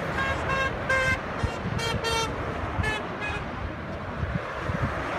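Car horns honking in a string of short toots from passing cars, about eight in the first three seconds, over the steady rumble of motorway traffic.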